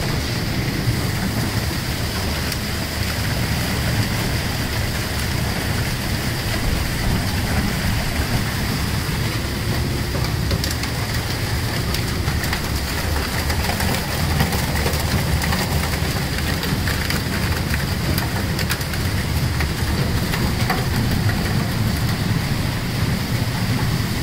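Heavy rain falling on a fishing boat's deck, pattering steadily over the low hum of the vessel's engine and deck machinery, with a steady high whine.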